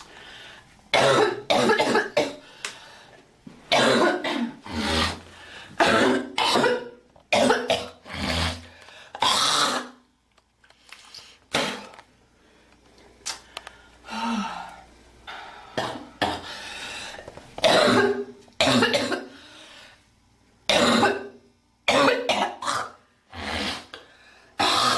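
A girl coughing over and over in fits of several short coughs, with throat clearing between them.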